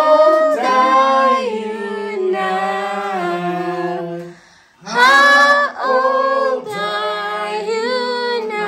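Women's voices singing unaccompanied, drawing out a birthday song in long held notes. There is a short break about four and a half seconds in before the next phrase.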